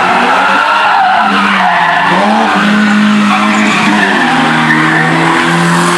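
Car drifting: tyres squealing and skidding over a loud, revving engine whose pitch holds high and steps up a couple of times.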